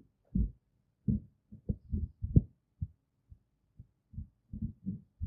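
Irregular soft, low thuds, about fifteen in five seconds: muffled taps of a computer mouse and keyboard picked up through the desk.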